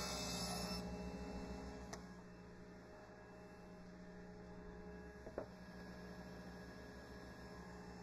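Steady low electrical hum, with two faint knocks near the start and the middle as cut wooden boards are shifted on the table saw's top.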